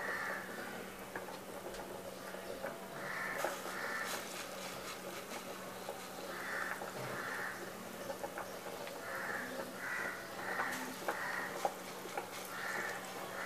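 Metal spoon clicking against the pan as chana dal vada batter is dropped and spread in shallow hot oil, over light sizzling. A short two-note sound repeats every two to three seconds, and a steady low hum runs underneath.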